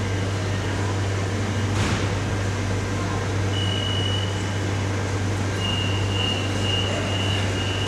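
Madrid Metro line 10 train standing at the platform with its doors open, its on-board equipment humming steadily and low. A thin high steady tone sounds for about a second a little past the midpoint, then again for the last two seconds or so.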